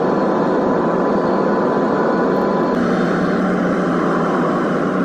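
Airliner cabin noise at a window seat: the steady rush of the jet engines and airflow on final approach. About three seconds in it changes abruptly to the lower rumble of the plane moving on the ground.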